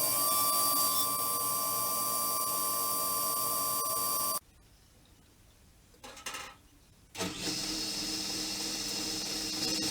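Woodworking power tool running with a steady whine; it cuts off suddenly a little over four seconds in, and after a couple of seconds of near quiet with one short faint sound, a tool runs again with a different pitch.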